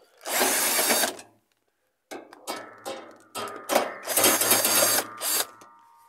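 Cordless drill with a socket on an extension spinning the 11/16 bolts off the transmission cover of a Maytag two-belt washer, in two short runs of about a second each. Between the runs come sharp clicks and knocks, and a thin ringing tone lingers after the second run.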